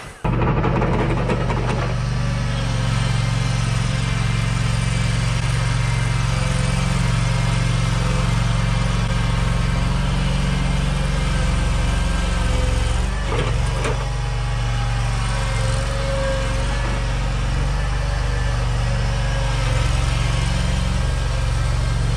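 Exmark stand-on mower's engine running steadily, with a couple of short knocks about midway.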